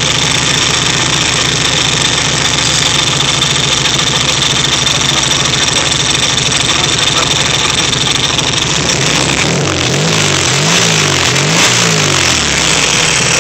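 Freshly rebuilt air-cooled VW 1600 cc single-port flat-four engine running on its first start. About ten seconds in it is revved up and back down three times in quick succession.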